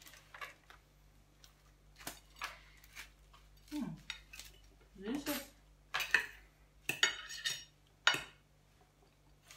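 Knife and fork clinking and scraping against plates during a meal, in scattered short strokes, with a few sharper clinks in the second half.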